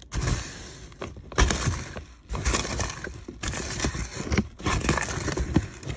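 A hand rummaging through loose small white beads in a cardboard box: the beads rattle and shift in irregular surges, with the hand brushing the cardboard.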